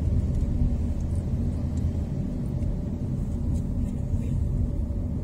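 Car driving on a paved road, heard from inside the cabin: a steady low rumble of engine and tyres.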